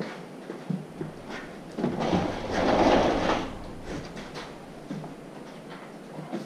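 Gear oil being poured from a can into an open milling-machine feed gearbox: light knocks of the can being handled, and a rushing pour of oil over the gears about two seconds in, lasting a second and a half.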